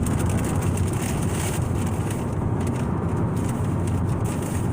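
Steady low rumble of a car running, engine and road noise heard from inside the cabin.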